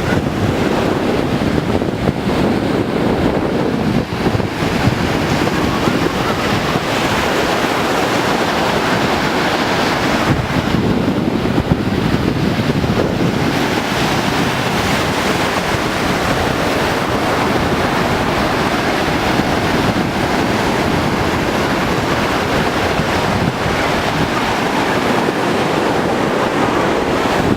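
Rough sea surf crashing and washing on the beach in a steady loud rush, with wind buffeting the microphone.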